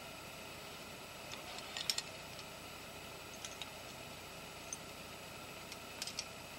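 Light clicks in a few short clusters, loudest about two seconds in and again near the end, over a steady hiss: rope and metal climbing gear being handled at the belay.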